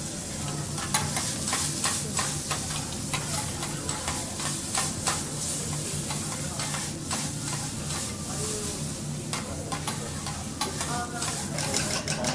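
Food sizzling on a teppanyaki iron griddle while metal spatulas scrape and clack against the hot plate; near the end a quick run of clicks.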